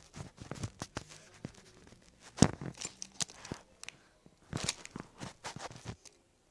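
Close handling noise: a string of clicks, knocks and rustles as a hand works at the phone and the jewellery in front of it, the loudest knock about two and a half seconds in, stopping about six seconds in.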